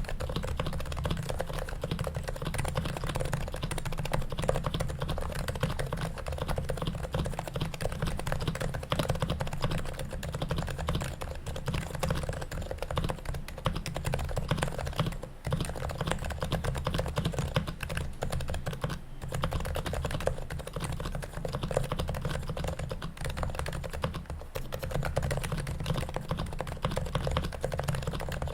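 Fast, continuous typing on a Topre keyboard: the Leopold FC660C's stock electrostatic-capacitive switches, silenced and lubed, under its OEM white keycaps in an anodized aluminium Sho66 case. The keystrokes run together in a dense patter with brief pauses about 15 and 19 seconds in.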